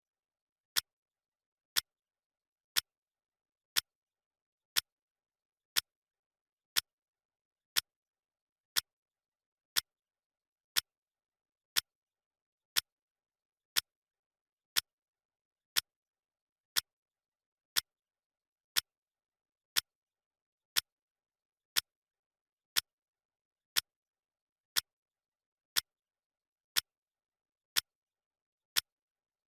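Clock ticking sound effect of a countdown timer: one sharp, even tick each second, with silence between ticks.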